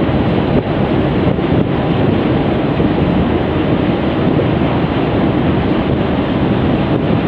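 Steady wind rumble on the microphone, mixed with the rush of water from a fast river patrol boat's bow wave and wake.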